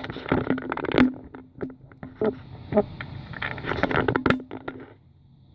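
Plastic side housing of a coffee machine being worked loose by hand: irregular clicks, knocks and scraping of plastic against plastic as it is pried off its snap latches.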